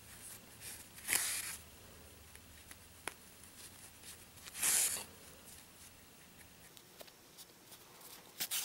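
Yarn being pulled through crocheted fabric with a blunt yarn needle during whip-stitching: two long swishes, one about a second in and one near five seconds, then a short scratchy pair near the end, with small clicks and rustles of handling between.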